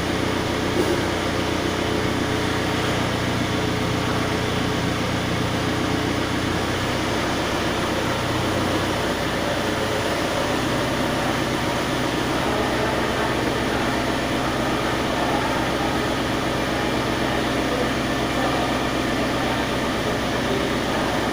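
An engine running steadily with a low hum that shifts lower about seven to nine seconds in, over a busy mechanical background.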